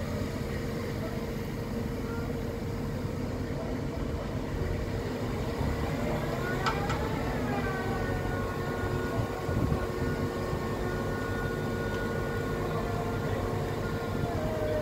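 Steady construction-site machinery rumble with a constant mid-pitched hum. About halfway through, a click is followed by a high multi-tone whine that bends downward and then holds steady until near the end.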